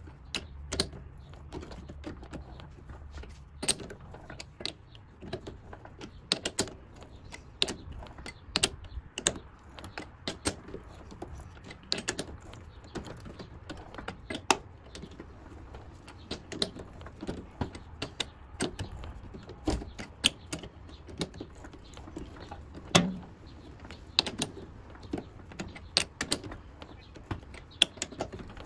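Threading die being worked onto a rod to cut a 3/8-24 thread. It gives irregular sharp metallic clicks and taps, with a low hum that is strongest in the first few seconds.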